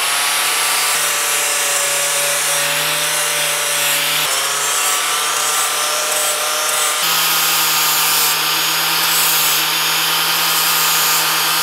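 Angle grinder with an abrasive disc running steadily, stripping paint off a cast aluminum electric-motor end bell to bare metal for welding. It gives a steady whine whose pitch shifts slightly twice.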